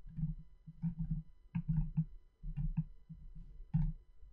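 Computer mouse being handled while scrolling through a web page: soft, irregular knocks and clicks, about two or three a second.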